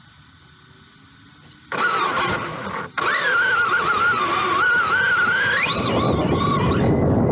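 Electric RC monster truck driving: its motor whines and its tyres run over the ground, starting suddenly a little under two seconds in. The whine wavers with the throttle and climbs in pitch near the end.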